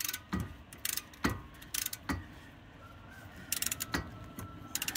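Half-inch-drive flex-head ratchet with a 21 mm socket clicking in about four short bursts as its handle swings back and forth, working a brake caliper bracket bolt. Single dull knocks fall between the bursts.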